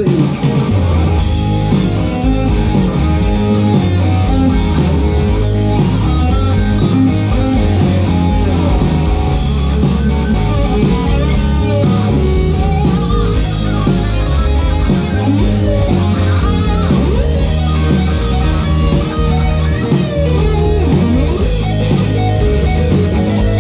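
Live band playing amplified through PA speakers, an instrumental passage with electric guitar to the fore over bass and a steady drum beat.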